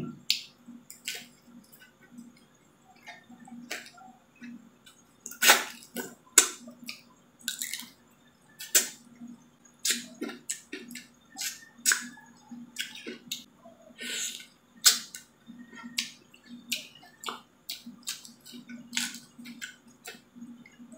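Close-up eating sounds of someone chewing shrimp wrapped in lettuce leaves: irregular wet smacks, clicks and crunches, with a faint steady hum underneath.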